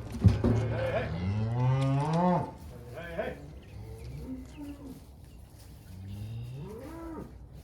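Cattle mooing: one long, loud moo that rises in pitch, and a second, quieter rising moo near the end. A sharp knock sounds just after the start.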